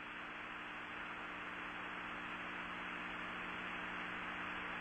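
Steady hiss with a low electrical hum of several steady tones on an old broadcast audio line, with no voice on it.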